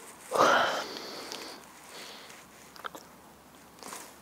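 A person's breathy exhale, like a sigh, fading over about a second, then a few faint small clicks near the end.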